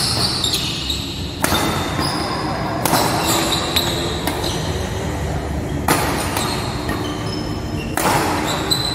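Badminton rackets striking the shuttlecock with several sharp hits at irregular intervals during a rally, with shoes squeaking on the court floor. The sounds echo in a large hall.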